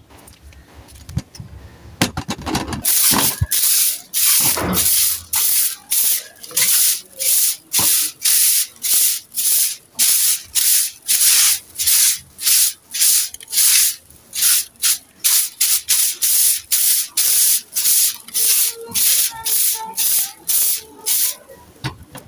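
Gritty sand-cement being scraped in a steady rhythm of short rasping strokes, about two a second, starting about three seconds in after some quiet handling and clicks.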